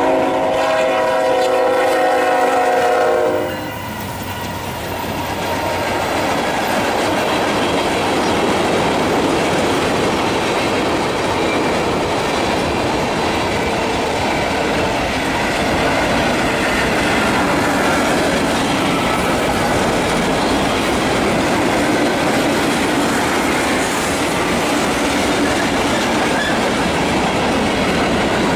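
Diesel locomotive horn sounding a chord that cuts off about three seconds in, followed by the loud, steady noise of the train rolling past.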